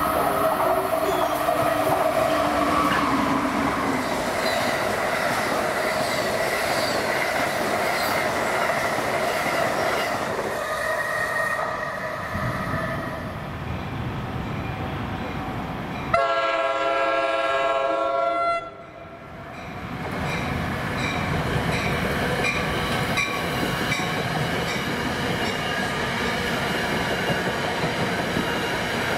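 Electric passenger trains running on a multi-track main line, a steady rolling rumble throughout. Just past the middle a train horn sounds for about two and a half seconds. In the last seconds a train of passenger coaches rolls past close by.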